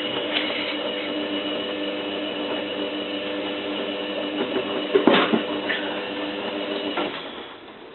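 Zanussi FLA1002W washing machine's drum motor running with a steady whine as it turns the drum on a duvet wash, a short splash or knock about five seconds in. The motor stops near the end, a pause in the drum's turning.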